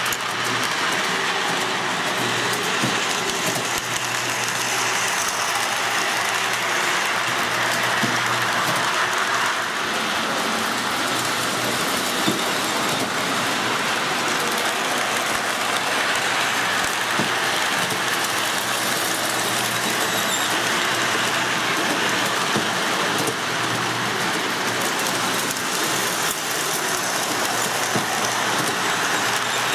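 O-gauge model train running on three-rail track: a steady whirring rumble of motor and wheels with a low hum underneath and occasional clicks.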